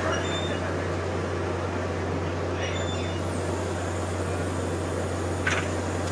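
Steady low drone of running dockside machinery, with a brief click about five and a half seconds in.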